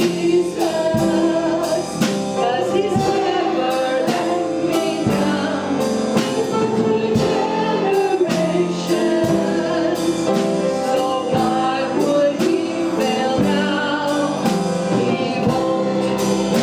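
Worship music: voices singing a gospel song over a band, with a steady drum beat.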